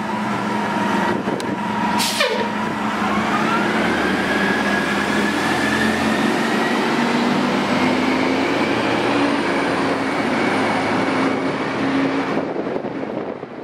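Orion V CNG transit bus with a Detroit Diesel Series 50G engine and Allison B400R transmission pulling away and accelerating. Its whine climbs slowly in pitch and fades near the end as the bus leaves. A brief sharp falling hiss comes about two seconds in.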